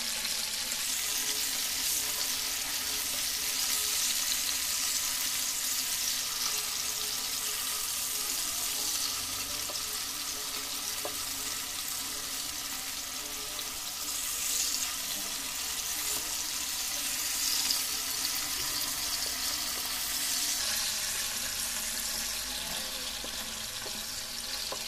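Marinated fish pieces shallow-frying in hot oil in a non-stick pan: a steady sizzle, with a wooden spatula now and then turning the pieces.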